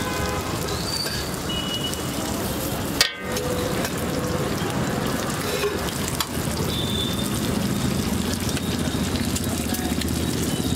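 Boiled egg halves frying on a large flat iron griddle (tawa), a steady sizzle throughout. A single sharp click about three seconds in.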